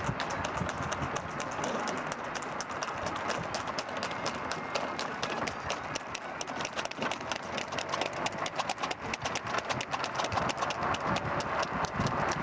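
A horse's hooves beating rapidly and evenly on a paved road as it pulls a racing tanga, a two-wheeled horse cart, over a steady rushing noise.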